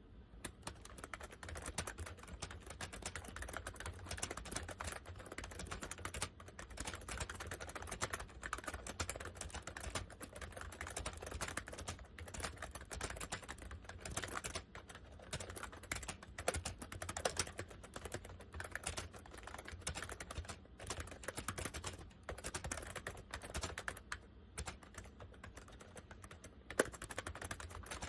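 Continuous fast typing on a Honeywell 101WN/WT keyboard, a cheaply built board with PBT keycaps: a dense run of key clicks with a few short pauses.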